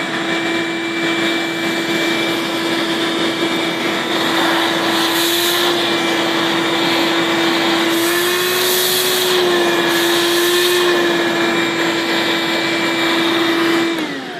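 Ridgid 14-gallon shop vacuum motor running steadily with a high whine, working again after a loose brush wire was reconnected. The hiss surges several times and the whine lifts slightly as the nozzle pulls in air and water, and the motor is switched off and winds down near the end.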